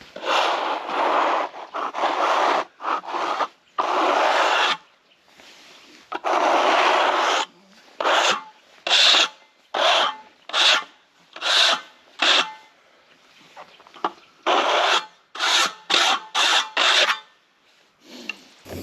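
Rubbing strokes across the rough-sawn surface of a freshly milled elm slab. The first few strokes are long and sweeping; then come quick strokes at about two a second, in two runs with a pause between.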